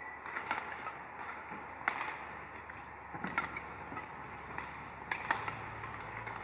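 Badminton rally: sharp strikes of rackets hitting the shuttlecock, about one every second and a half, over steady arena background noise.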